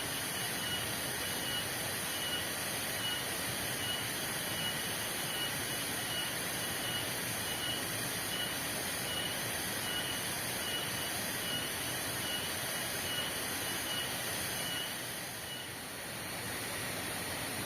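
Steady hiss of heavy rain falling in forest. A faint high chirp repeats about once every 0.7 s and stops near the end, where the rain briefly eases.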